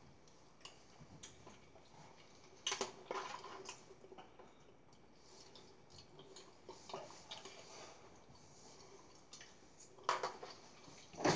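Spoon clinking and scraping against a bowl during eating: scattered light clicks, a small cluster about three seconds in and the loudest near the end.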